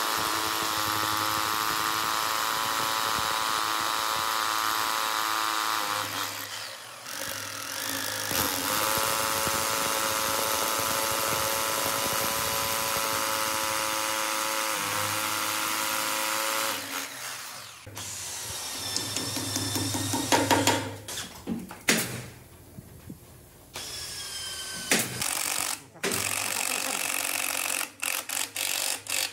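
An electric power tool's motor running with a steady whine, stopping about six seconds in, starting again and stopping near the middle. Then come scattered sharp knocks and clicks with a few brief motor spin-ups.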